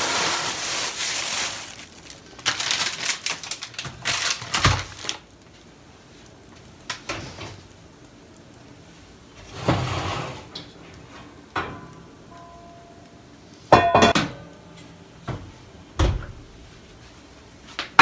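Plastic packaging rustling at first, then scattered knocks and clatters, the loudest a little before the end, as a metal baking tray is pulled out of the oven.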